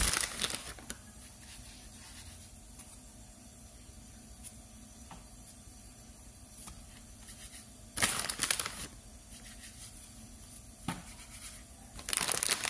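Hands handling a floured sheet of dough on paper: short bursts of rustling and scratching as it is lifted and folded, three times, with a couple of faint clicks between and quiet in the gaps.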